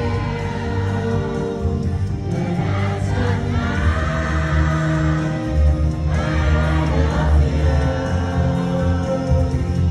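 Live pop ballad performance: singing over a steady backing track, with long held notes twice.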